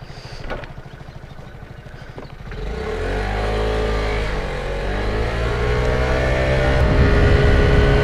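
Motor scooter's small engine idling, then pulling away about two and a half seconds in, its pitch rising, easing briefly and rising again as it accelerates, with wind rumbling on the microphone near the end.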